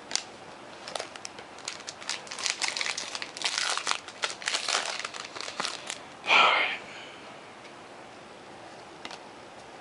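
Trading cards being handled and flipped through, a dense run of crinkling and small clicks that stops about six seconds in, followed by a short breathy noise.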